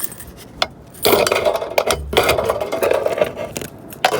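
Metal hinged gutter guard being handled against the gutter: a rapid rattling scrape with sharp metallic clicks, starting about a second in and stopping just before the end.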